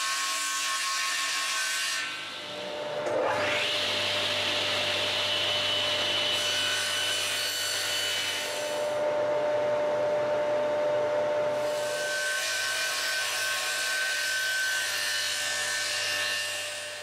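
Table saw running and crosscutting a panel on a sled. The motor spins up about three seconds in, and the cutting noise swells and fades as the work is pushed through the blade.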